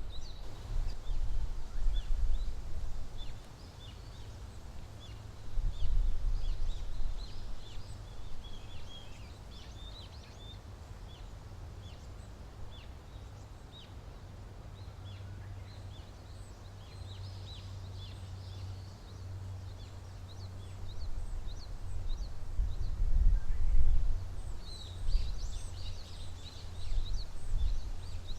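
Many small songbirds chirping in woodland, a steady stream of short high notes that gets busier near the end. A low rumble comes and goes beneath them and is louder than the birds at times.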